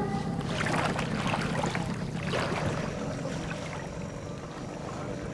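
Lake water splashing and lapping as a Labrador swims towing an orange rescue ring, busiest in the first couple of seconds, over a steady low hum.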